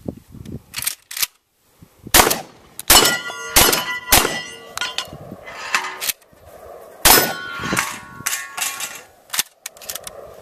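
A string of shotgun shots fired in quick succession at steel targets, each hit answered by the clang and ringing of the steel plates, with a pause of a few seconds midway.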